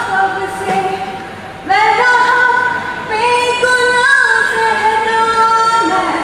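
A woman singing a song solo into a microphone, in long held notes, with brief breaks between phrases about two and three seconds in.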